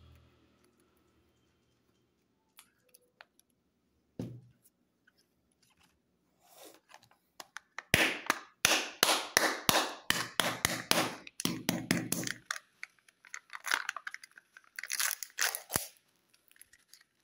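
Foil wrapper being torn and peeled off a chocolate surprise egg by hand: a quick run of crinkling, crackling tears for several seconds after a mostly quiet start with a single soft knock.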